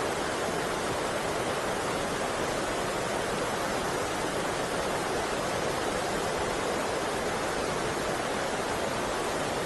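Steady, even rush of river water pouring over a weir.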